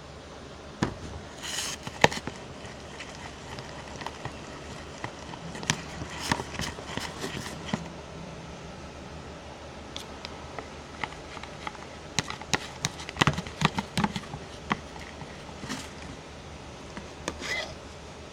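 Scattered knocks, clicks and short scrapes from handling a glue bottle, a spoon and bowls while glue is poured for slime, with clusters about a second in, around six seconds, and between twelve and fifteen seconds.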